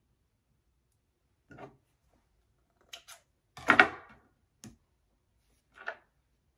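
Scissors cutting elastic cord: a handful of short sounds spread out, the loudest a brief snip about halfway through.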